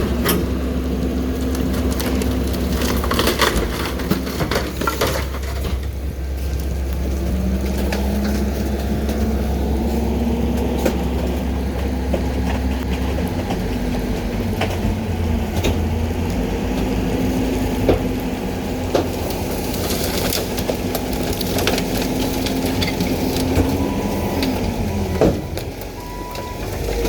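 Garbage truck's hydraulic packer running through its compaction cycle on bulky waste, with a whine that rises and falls in several long strokes over the running engine. Loose sharp cracks and snaps of material breaking under the blade come now and then.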